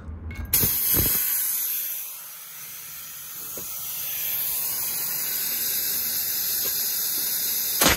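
Compressed air hissing steadily from an air line while inflating a tire whose bead has not seated and charging a bead seater tank, with a couple of knocks early on. One short, sharp burst comes right at the end and the sound cuts off.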